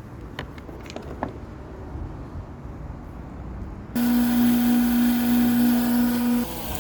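Wet tile saw motor running with a steady hum and hiss, starting suddenly about four seconds in and dropping away about two and a half seconds later. Before it come a few light clicks.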